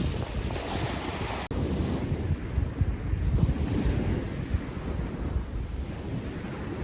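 Wind buffeting the microphone outdoors, a steady uneven low rumble, with a momentary dropout about a second and a half in.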